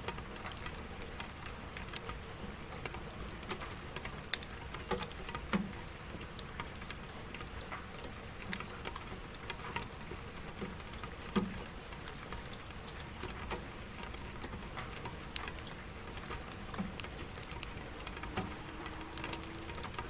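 Steady rain, with individual drops pattering and ticking at irregular intervals.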